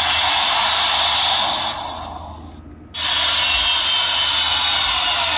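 Toy sound book's small speaker playing recorded airplane engine sound effects: a rushing hiss that fades out about two seconds in, then a second one cuts in sharply about a second later, its whining tones starting to drop in pitch near the end.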